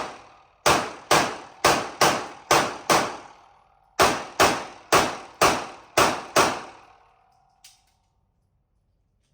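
Handgun fired rapidly: two strings of six shots, about two shots a second, with a pause of about a second between them. A short ringing tone follows the last shot.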